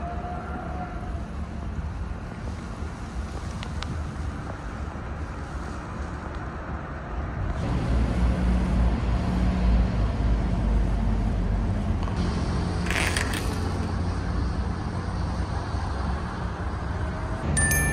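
Motor vehicle engine running with steady road rumble, growing louder about seven seconds in. A short hiss comes around thirteen seconds, and a brief high beep near the end.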